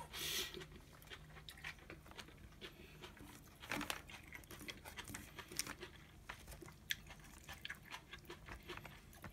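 Faint, irregular crunching of a mouthful of thawed, previously frozen cabbage kimchi being chewed, with a sharper crunch about four seconds in. The crunch is the sign that the cabbage stayed crisp through freezing and thawing.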